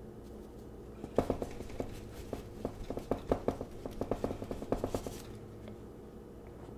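Paintbrush dabbing and tapping against a canvas: a run of irregular taps, several a second, starting about a second in and lasting about four seconds.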